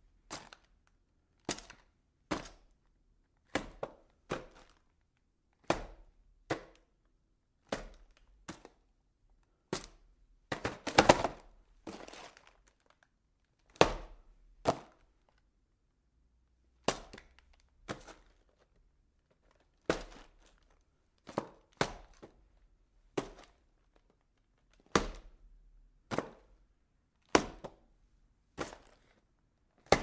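Boxes being packed: a series of short, sharp knocks and thuds, often in pairs about a second apart, as things are set down and handled in cardboard boxes. About eleven seconds in there is a longer stretch of quick knocks and rustling.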